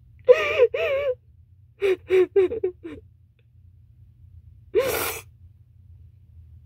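A woman sobbing into a towel held over her face: two wavering cries just under a second in, then a quick run of short sobs, then one sharp noisy gasping breath about five seconds in.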